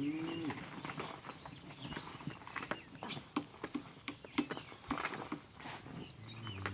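Dairy cow mooing, one call ending about half a second in and another starting near the end. Between the calls come irregular light knocks and scuffs.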